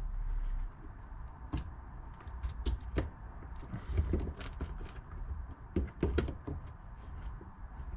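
Scattered light clicks and knocks of metal parts and tools being handled, with a few duller thuds.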